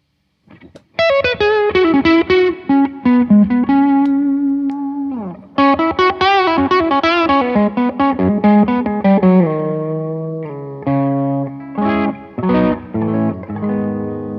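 Electric guitar played through a Blackstar JJN20 MkII combo amp. After about a second of silence it plays a single-note lead phrase with bends and vibrato, slides down about five seconds in, then plays short stabbed chords and ends on a held, ringing chord.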